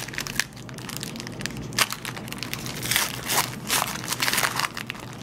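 Foil wrapper of a trading card pack crinkling and tearing as it is ripped open by hand, in a run of crackly rustles that is busiest about three to four and a half seconds in.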